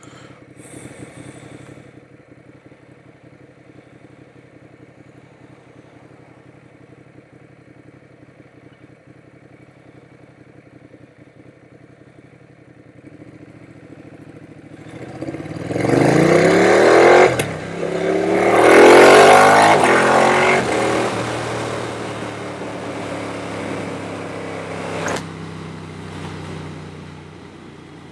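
Ducati motorcycle engine idling quietly, then, about halfway through, pulling away: the engine note climbs, dips briefly at a gear change, climbs again in the next gear, and settles into steady running at road speed.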